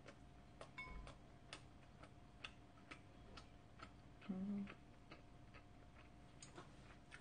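Faint wet mouth clicks and smacks of someone chewing food with the mouth closed, irregular, one or two a second, with a short low hum of enjoyment about four seconds in.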